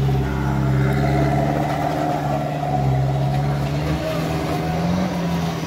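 A vehicle engine running steadily with a low hum, its pitch rising slightly about four seconds in.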